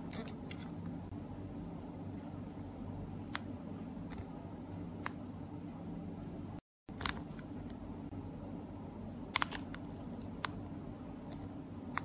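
Sharp, scattered clicks of small plastic key-fob remote buttons being pressed by thumb, as a cloning remote is held against an original remote to copy its code, over a steady low hum. The loudest is a quick pair of clicks past the middle, and the sound cuts out briefly just before halfway.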